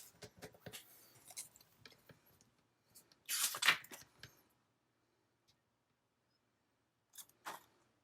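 Paper craft supplies being handled on a desk: small clicks and rustles of paper and plastic, one louder rasp about three and a half seconds in, and two short scrapes near the end.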